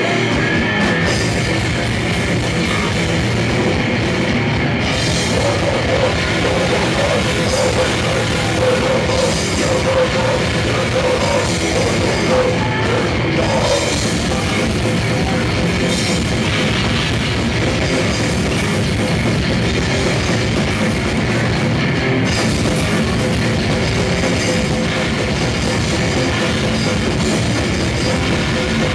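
Grindcore band playing live and loud: distorted electric guitar, bass guitar and drum kit in one dense, unbroken wall of sound.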